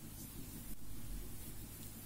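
Steady low hum and hiss of background noise, with no distinct sound event standing out.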